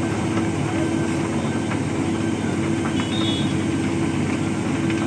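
Engine of heavy road-construction machinery running steadily, a constant drone with a steady hum.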